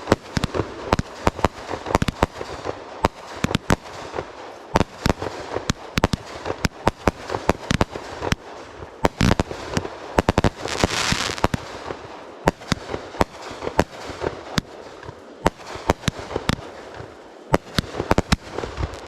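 Fireworks going off: a dense, irregular string of sharp bangs and pops, with a hissing burst of noise about eleven seconds in.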